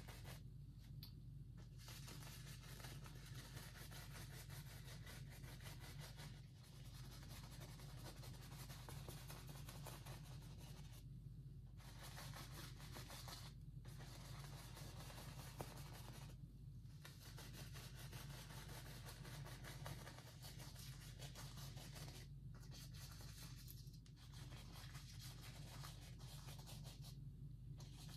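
Faint scratchy rubbing of a fan brush swirled and dabbed across a stretched canvas in oil paint, breaking off for a moment every few seconds as the brush lifts, over a steady low hum.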